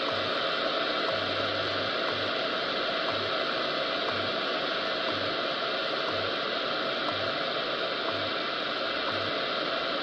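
XHDATA D-109 portable shortwave radio tuned to the WWV time station on 25 MHz: steady static hiss with a faint tick every second. Under it a low hum pulses once a second in short and long pulses, WWV's 100 Hz time code.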